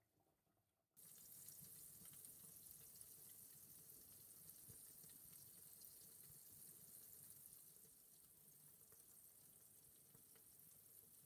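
Faint sizzling and crackling of fat and juices around roasting turkey legs in a roasting pan, starting suddenly about a second in and then steady.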